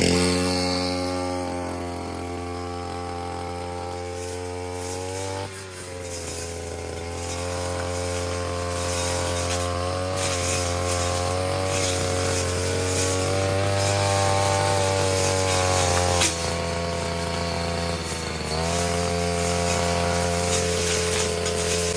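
Two-stroke brush cutter engine running at high speed. Its pitch sags twice, about five seconds and about eighteen seconds in, then picks back up.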